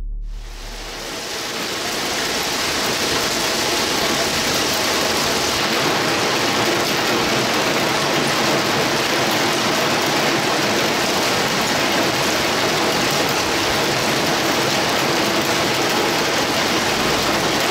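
Hail and heavy rain pelting pavement and grass: a dense, steady patter of countless small impacts that fades in over the first couple of seconds.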